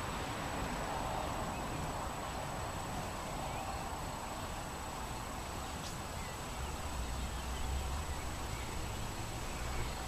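Breezy outdoor ambience: a steady rustling hiss of wind, with low wind rumble on the microphone swelling about seven seconds in, and faint bird chirps.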